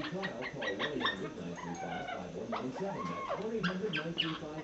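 A pet's whiny vocal calls, one clear rising-and-falling whine about three seconds in, over a low steady drone with scattered short clicks.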